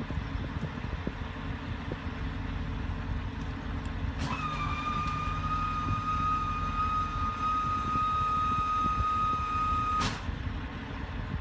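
Porsche 928's V8 engine idling, a steady low rumble, as the car creeps up a loading ramp. About four seconds in, a steady high-pitched whine starts with a click, holds one pitch for about six seconds, then cuts off suddenly.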